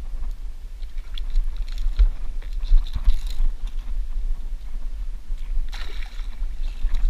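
Fly line stripped in by hand over a boat's gunwale, with scattered light ticks and rubs, and a splash about six seconds in as a hooked skipjack tuna thrashes at the surface beside the boat. A steady low rumble runs underneath.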